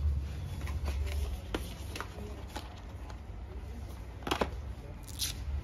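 A cardboard smartphone box being opened by hand and the phone slid out: soft scrapes and rustles with several sharp clicks, the loudest a double click about four seconds in. A low hum sits under the first second or so.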